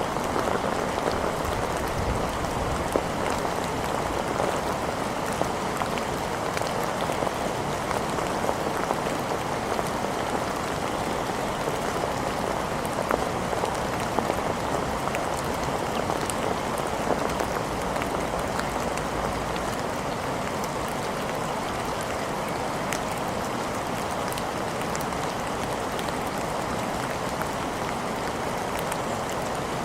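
Steady rain falling on hard surfaces, with many small drop ticks. A low rumble runs underneath for the first two-thirds and stops about twenty seconds in.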